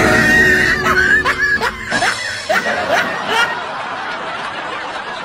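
Pigs squealing in short rising cries amid a noisy scuffle, with people's voices mixed in. The cries are thickest in the first three and a half seconds, then give way to a steadier, quieter din.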